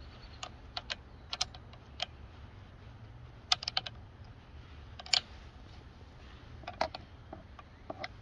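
Irregular light clicks and clinks of hand tools and parts while the air box and carburetor are unbolted from a 15 hp Evinrude two-stroke outboard, over a low steady hum. There is a quick run of clicks about three and a half seconds in and a sharper single one about five seconds in.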